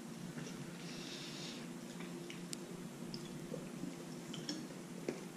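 Faint chewing and mouth sounds of someone eating chewy, dry bread, with a few small clicks over a steady low hum.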